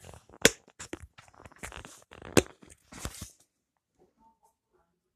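Rustling and clicking handling noises with two sharp knocks, about half a second and two and a half seconds in. The noises stop after about three seconds.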